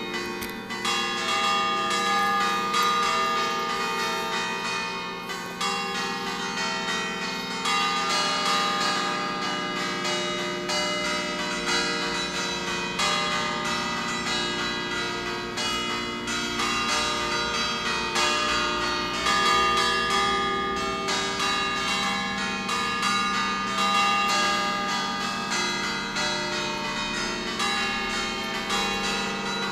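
A peal of eight bronze church bells tuned in B-flat, cast by Pruneri with three by Ottolina, rung in a quick, continuous run of strikes, so that many bell tones overlap and hum on.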